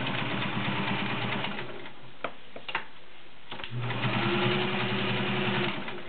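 Vintage all-metal Kenmore 1430 sewing machine stitching through 14 layers of cotton, its motor running with a fast needle rhythm. It stops for about two seconds, with two light clicks, then sews again for about two seconds.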